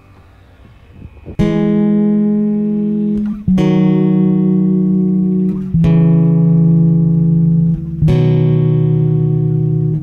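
Background music: guitar chords struck about every two seconds and left to ring, four in all, after a quiet first second.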